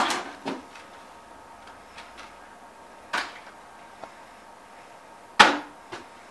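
A partly filled plastic water bottle flipped onto a wooden table, landing with sharp hollow knocks: a loud knock with a small bounce right at the start, another knock about three seconds in, and a loud knock with a bounce near the end.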